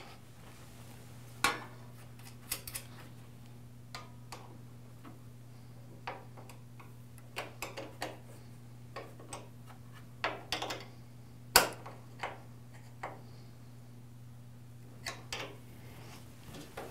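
Metal wrenches clicking and clinking against a thickness planer's table-adjusting bolt and its lock nut as the lock nut is tightened, in scattered irregular clicks, the loudest about a second and a half in and near twelve seconds in. A steady low hum runs underneath.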